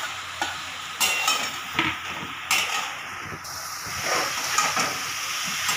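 Spatula scraping and knocking against a metal kadai as fried potatoes are stirred into sizzling masala, several sharp knocks in the first couple of seconds, over a steady frying hiss.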